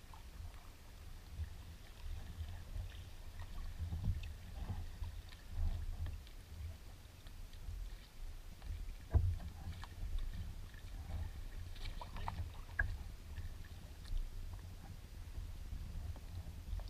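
Kayak paddling heard from a camera at the waterline: a steady low rumbling buffet on the microphone with faint splashes and drips, and a single sharper knock about nine seconds in.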